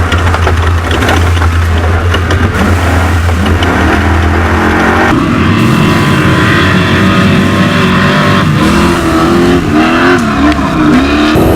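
Off-road race vehicle's engine running hard at speed, its pitch rising and falling as it revs through the terrain. Rattling and clatter sound over it during the first few seconds.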